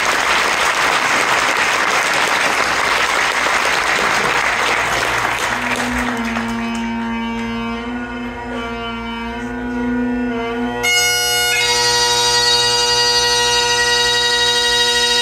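Audience applause fading out, then Highland bagpipes being struck up: the low drones sound from about five seconds in, and the chanter comes in with a sudden attack about eleven seconds in, after which the full pipes hold steady.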